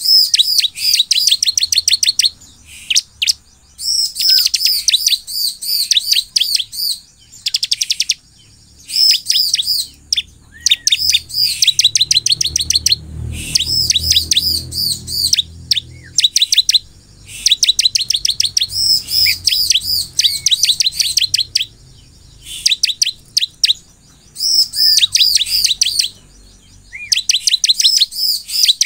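Ciblek (bar-winged prinia) singing in lively song: runs of rapid, high chirps a second or two long, repeated again and again with short pauses between.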